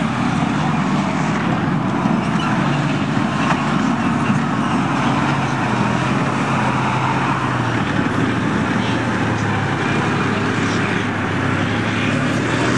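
T-72 tank's V12 diesel engine running steadily as the tank drives and turns over dirt.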